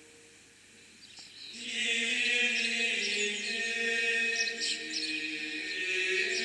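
Gregorian chant sung by a group of monks' male voices, holding long, slowly moving notes. The chant swells in about a second and a half in. A high shimmering hiss with small chirps sits above the voices.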